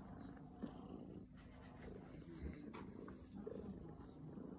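Calico cat purring, a faint, steady rumble with a few soft clicks over it.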